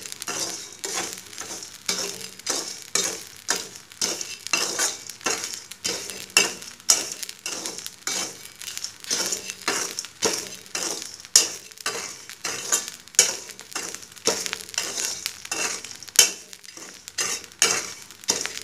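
Perforated metal ladle (jhara) stirring and scraping hot coarse salt and black chickpeas around a kadhai: a gritty, rhythmic scrape with strokes about twice a second. It is the sound of chana being dry-roasted in salt on high heat.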